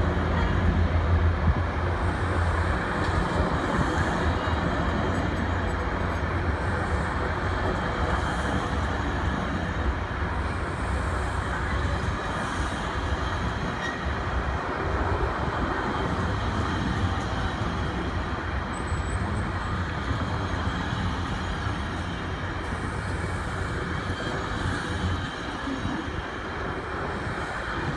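GO Transit bilevel passenger train rolling out of the station, a steady rumble of coaches and wheels on the rails. A low hum runs underneath and drops away near the end as the train draws off.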